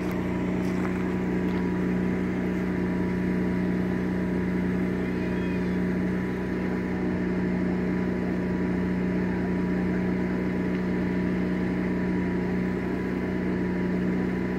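An engine running steadily: a constant low hum that does not change.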